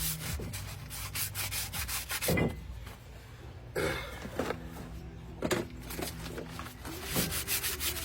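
Sandpaper rubbed by hand back and forth over the face of a 2012 Ford Escape's brake rotor in quick scraping strokes, with a short pause near the middle. The rotor surface is being scuffed clean before new brake pads go on.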